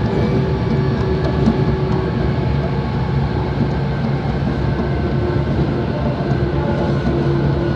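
Running sound heard inside a Kobe Municipal Subway 3000 series car (car 3124, Hitachi GTO inverter) under way. A steady rumble from the wheels and body carries several steady tones from the motor and drive gear.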